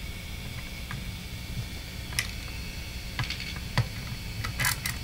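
Scattered small clicks and ticks, a few in quick clusters near the end, from fingers handling the wiring and potentiometer inside an open metal wah-pedal housing, over a steady low hum.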